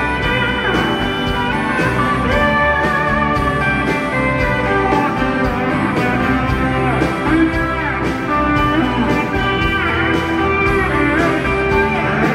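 Live rock band playing: acoustic and electric guitars over drums, with guitar lines sliding up and down in pitch, recorded from among the audience in an arena.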